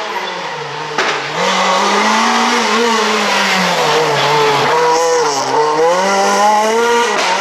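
Renault Clio rally car passing at stage speed, its engine note rising and falling as it climbs through the gears, dipping as it slows for the bend about four seconds in and climbing again as it accelerates away.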